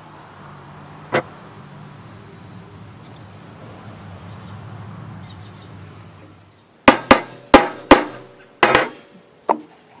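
Hammer driving nails into the glued wooden strips of a birdhouse base: a run of about seven sharp strikes, some in quick pairs, starting about seven seconds in, each with a short ring. Before them there is a low steady hum and a single knock about a second in.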